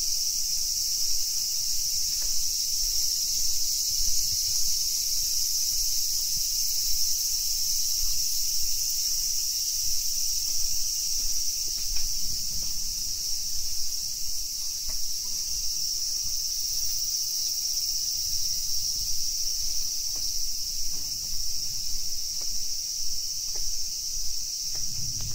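A steady, high-pitched chorus of insects that keeps on without a break. A soft low rumble of walking and handling lies underneath.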